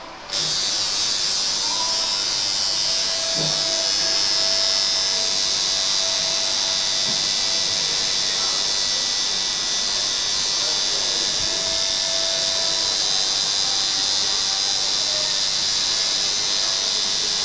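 Tattoo machine starts up a moment in and runs with a steady high buzz while needling skin.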